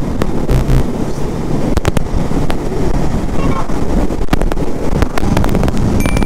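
Steady wind rush on the microphone over a Voge 500R's parallel-twin engine running at road speed on a motorcycle ride.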